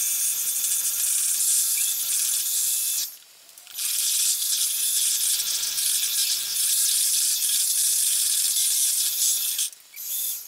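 Electric hand mixer running, its beaters whisking egg white in a stainless steel bowl. It pauses briefly about three seconds in, runs again, and stops near the end, then gives one short burst.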